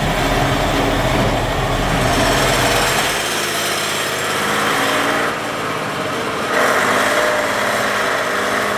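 Mercedes-Benz NG 1719 K truck's diesel engine running as the truck drives. It has a deep low hum for the first three seconds, then a lighter engine note; the level dips about five seconds in and rises again at about six and a half seconds as the engine pitch climbs.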